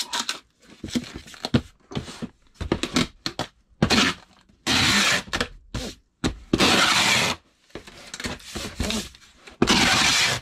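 A cardboard box being folded and handled, with a run of short knocks and crackles, then brown packing tape pulled from a handheld tape gun across the box in three long, loud rips, about five, six and a half and ten seconds in.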